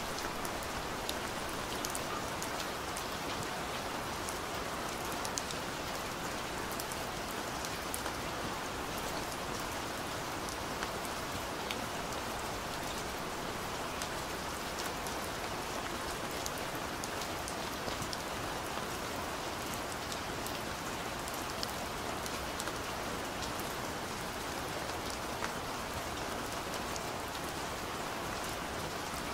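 Steady rain falling, an even hiss with many scattered sharp ticks of individual drops striking a surface.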